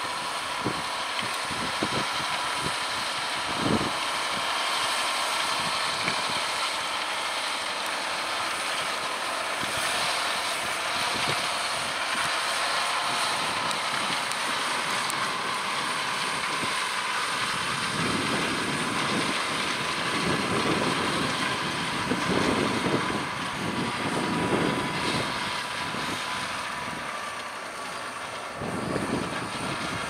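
John Deere 6250R tractor's six-cylinder diesel engine running steadily under load as it pulls a seven-furrow plough through the soil, with a faint steady whine. Wind buffets the microphone at times, most of all in the second half.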